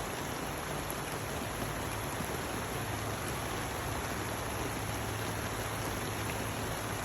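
Steady rain falling, an even unbroken hiss, with a faint low hum underneath.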